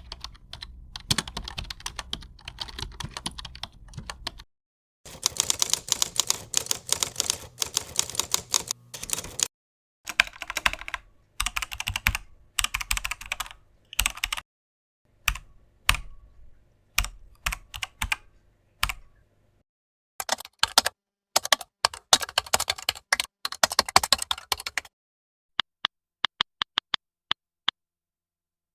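Computer keyboard being typed on: rapid runs of key clicks in several separate bursts of a few seconds each, with short silences between them. Near the end only single sharp clicks remain, evenly spaced about three a second.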